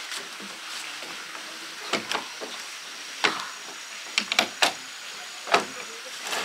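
A KZM folding camping chair with wooden armrests giving sharp clicks and knocks as someone settles into it, about seven in all between two and six seconds in. The clicks sit over a steady background hiss.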